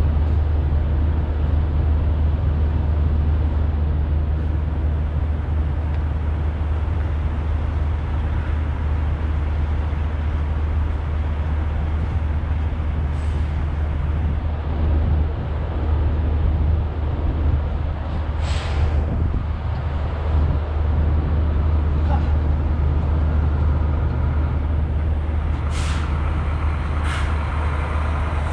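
A motor or engine running steadily with a loud low hum. There are a few brief sharp noises in the second half.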